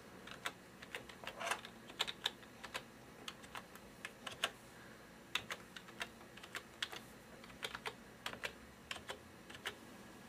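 Computer keyboard typing: faint, irregular keystrokes as a username and then a password are typed, with a brief pause about halfway.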